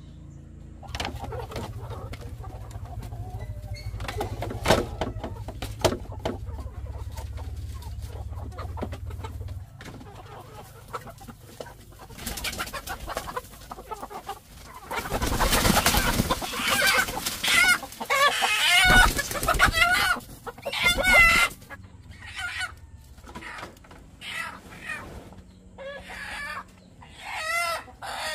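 Chickens clucking, with a loud stretch of squawking and crowing calls a little past the middle and shorter clucks near the end.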